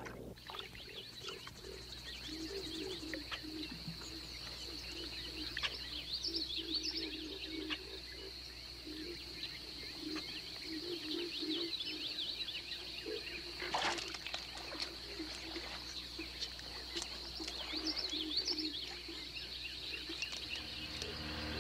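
Swamp wildlife chorus: a steady high-pitched insect drone under repeated clusters of low pulsed animal calls and scattered high chirps. One brief, louder falling sweep comes about two-thirds of the way through.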